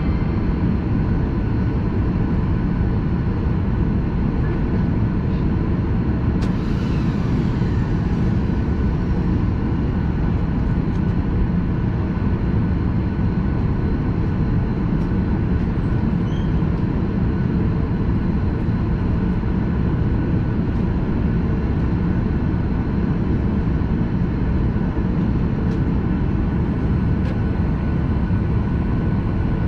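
Steady engine and airflow noise inside the cabin of a JAL jet airliner: a loud, even low rumble with a faint steady whine above it.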